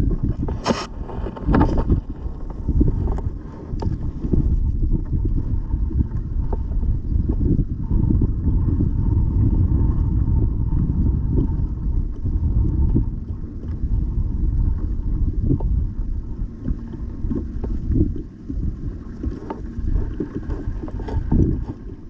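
Wind buffeting an action camera's microphone on open water: a loud, low rushing noise that rises and falls in gusts. A few sharp clicks sound in the first two seconds.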